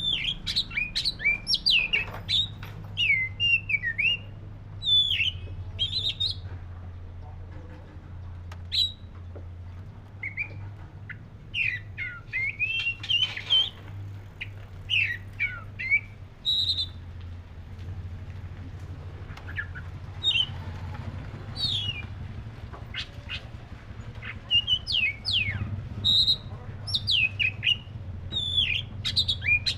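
Oriental magpie-robin (black-breasted kacer) singing: bursts of quick, varied whistled notes and slurred phrases with short pauses between them, over a steady low hum.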